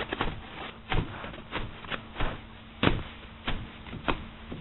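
Loose sawdust being tamped down hard inside a metal popcorn tin with a rod, giving a regular series of about eight short knocks, roughly three every two seconds.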